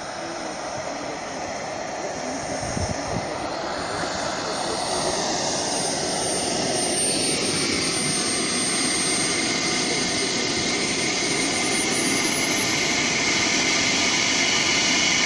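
RC model jet's miniature gas-turbine engine running: a high thin whine over a rushing exhaust, growing steadily louder as the jet comes closer. The whine rises in pitch about three-quarters of the way through.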